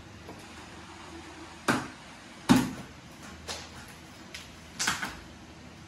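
Plastic packing straps on a wrapped wooden crate being cut with hand cutters: four sharp snaps about a second apart, the loudest about two and a half seconds in, with rustling of the plastic film.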